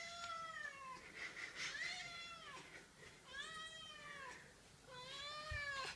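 A domestic cat meowing repeatedly, about four drawn-out meows that each rise and then fall in pitch. The cat is begging for more food.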